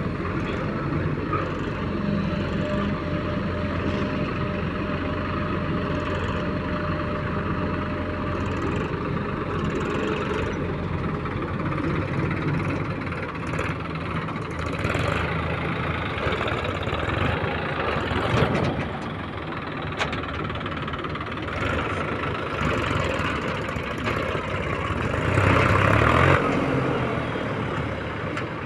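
Diesel engine of a JCB 3DX backhoe loader running steadily as it works, growing louder for a moment near the end.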